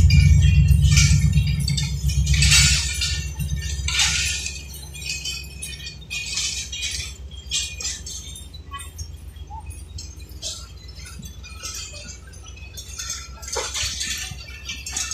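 Passenger train coaches rolling slowly past on the track: a low rumble that fades over the first few seconds, then a quieter drone with scattered metallic clinks and squeals from the wheels and couplings.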